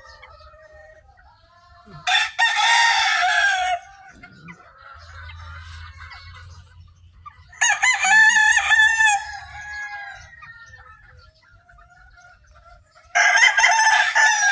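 Rooster crowing three times: about two seconds in, about eight seconds in, and again near the end. Each crow lasts about one and a half to two seconds, with soft clucking from the flock between them.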